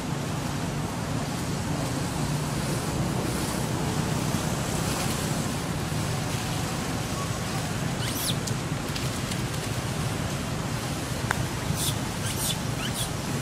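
Steady outdoor background noise with a low rumble, and a few short, high squeaks about eight seconds in and again near the end.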